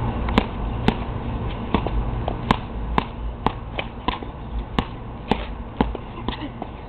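A child's jabs smacking into a sparring partner's hands, sharp slaps about every half second in an uneven rhythm.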